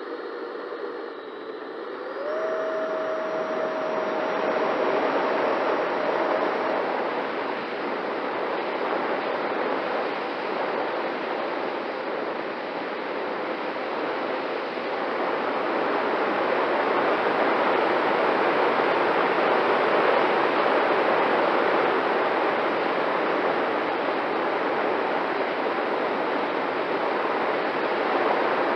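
Twin 80 mm electric ducted fans of a Freewing MiG-29 RC jet spooling up to takeoff power, with a whine that rises about two seconds in and then holds. Under it is a steady loud rush of fan and airflow on the onboard camera as the jet flies.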